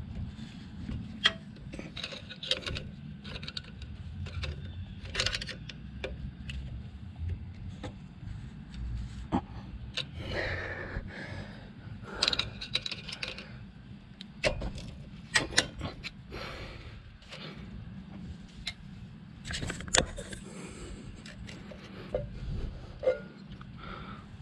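Hand work on a Harley-Davidson Ironhead engine's pushrod covers: scattered sharp metal clicks and clinks with short scrapes as the covers are pushed down and snapped into place, over a steady low hum.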